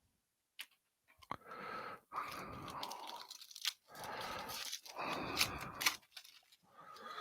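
Foil trading-card pack wrapper being torn open and crinkled by hand, in about five noisy stretches of tearing and rustling with a couple of sharp clicks at the start.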